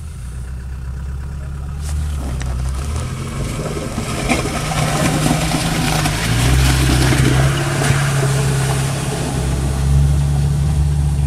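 Off-road 4x4's engine running with a loud exhaust, heard from inside the cab, its revs stepping up and down as it crawls in low gear. A hiss of tyres working through snow and ice builds from about four seconds in.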